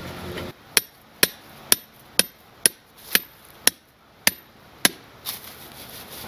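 Small metal pry bar jabbed repeatedly into stony ground to open a hole for a solar light stake, striking rock. Nine sharp metallic strikes come at about two a second, then stop.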